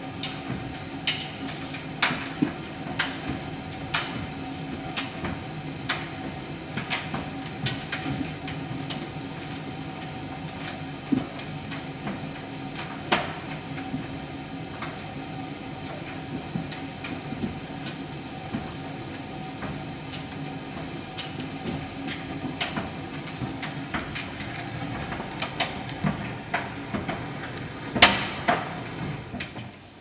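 Miele PT 5136 tumble dryer running: a steady motor and fan hum with irregular sharp knocks and clicks from the tumbling drum, roughly one a second, and one louder knock near the end.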